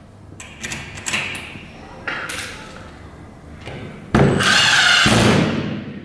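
Cordless drill driving a screw into the patio door lock, a burst of about a second near the end, after a few light clicks and knocks of the screws and lock parts being handled.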